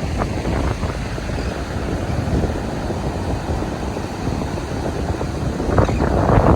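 Strong wind buffeting the microphone, a rough, uneven rumble that grows louder near the end as a gust picks up.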